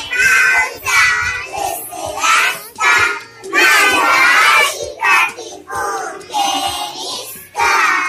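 A group of young children singing a song together, loud, in short phrases with brief breaks between them.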